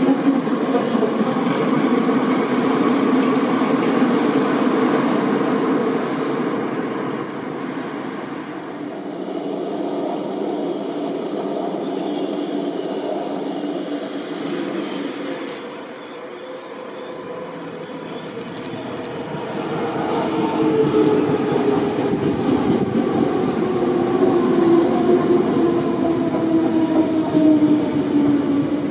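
Hamburg S-Bahn class 472 electric multiple units. For the first several seconds a train runs past close by, then the noise drops for a while as another approaches. From about two-thirds of the way in, a train passes close again with a motor whine that falls steadily in pitch.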